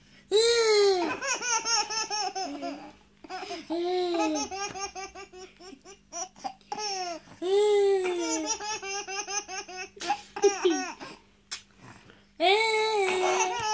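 Baby girl laughing hysterically: several long bouts of high-pitched belly laughter, each starting with a falling peal and breaking into rapid pulses, with short breaths between bouts.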